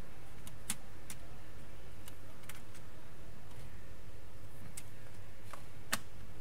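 Light plastic clicks and taps, about seven scattered, the last one the sharpest, as hands work the opened disc-loading mechanism of a PS4 Slim and handle a game disc. A steady low hum lies underneath.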